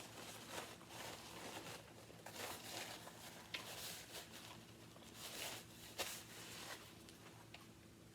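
Faint eating sounds while chewing a sub sandwich: soft, irregular crunchy rustles and small clicks over a low steady hum.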